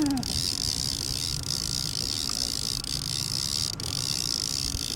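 Boat engine running steadily at trolling speed, a low rumble with a steady high hiss over it.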